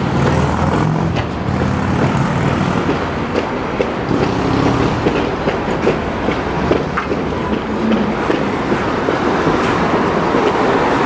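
A tram rumbling along the street over steady city traffic noise, with a low hum in the first couple of seconds.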